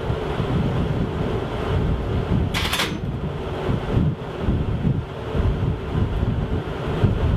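Wind buffeting the microphone on a ship's deck at sea, a steady low rumble. About two and a half seconds in there is one brief sharp hiss.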